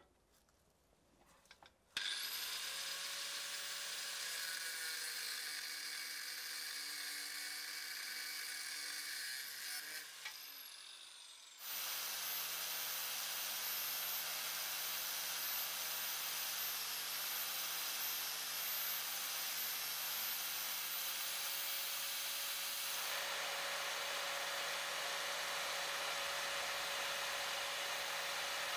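Angle grinder mounted disc-up as a bench sander starts after about two seconds and runs with a steady whine while a small metal block is ground against its sanding disc. About ten seconds in it winds down with a falling whine, then starts again and runs on steadily.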